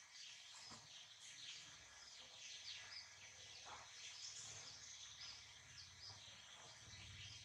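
Near silence, with many faint, short, high chirps in the background over a low hum.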